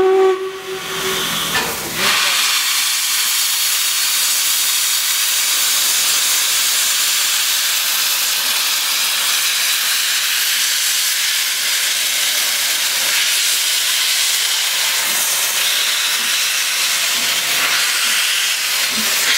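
LMS Princess Coronation Class steam locomotive 'Duchess of Sutherland' pulling away with its cylinder drain cocks open: a loud, steady hiss of escaping steam, starting about two seconds in.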